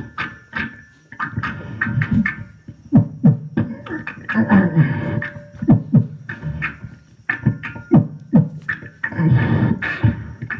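Beatboxing: a voice making drum-like low thumps and sharp clicks in quick succession, with some hissing and held tones between them.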